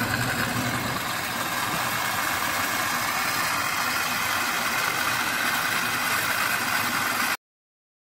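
Hermetic refrigerator compressor running steadily while it sucks oil up a tube from a bottle into its suction line: an even hum with a hiss. The sound cuts off suddenly near the end.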